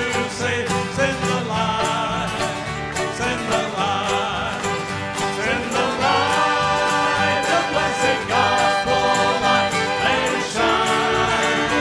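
A bluegrass gospel band playing live: banjo, acoustic guitars, fiddle, electric bass and drums, with voices singing.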